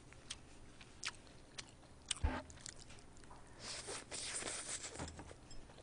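Close-miked mouth sounds of a person eating stir-fried pork and rice: scattered sharp clicks of chewing and lip smacks, and a dull knock about two seconds in. From about three and a half to five seconds there is a longer rustling stretch as rice is shoveled from a bowl held to the mouth with chopsticks.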